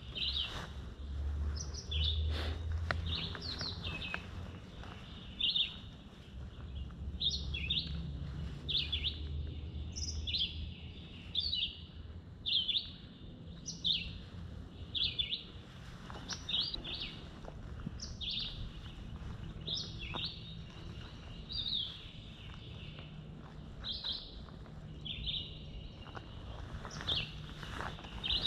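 Red-eyed vireo singing: short, clipped phrases repeated about once a second, each broken off by a brief pause, in a steady, tireless series.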